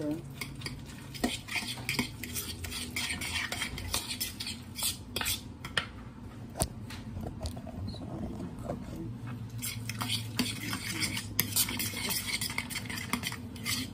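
A utensil stirring and scraping in a bowl, with repeated quick clinks against the sides, as wet pancake-batter ingredients (mashed sweet potato, apple and egg) are mixed together.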